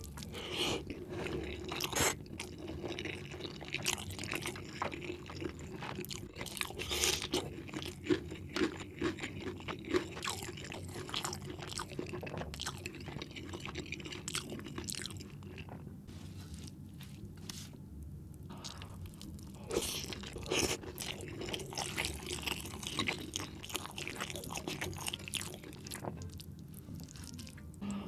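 Close-miked eating sounds: a person chewing and biting into spinach chicken curry, with wet chewing and crunchy, crackly bites. It eases off for a few seconds past the middle, then picks up again.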